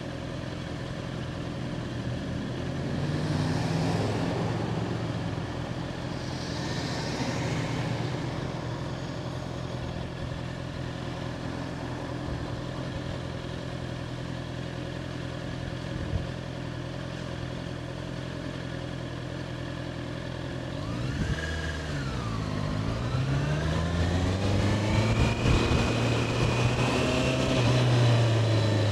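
2021 Honda CBR650R's inline-four engine running steadily at low revs, then about two-thirds of the way through its pitch dips and climbs as the bike accelerates.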